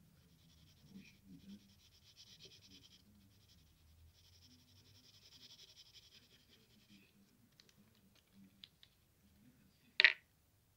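Graphite pencil scratching faintly on lined paper in two long stretches of shading strokes. A few light ticks follow, then one sharp click near the end.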